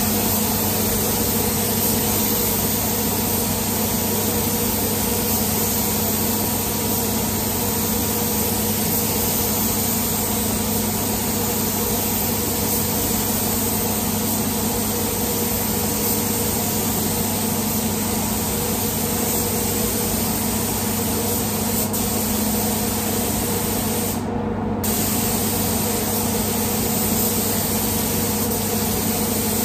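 Gravity-feed spray gun hissing steadily as it sprays clear-coat lacquer onto a car bonnet, over a steady low hum. The spray breaks off for a moment about 24 seconds in.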